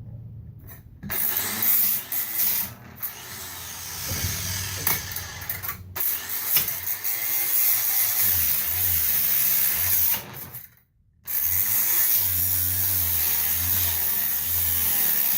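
Grinder with a 6-inch wheel cutting through a rusted leaf spring bolt. It cuts out suddenly twice, briefly about six seconds in and again just past ten seconds.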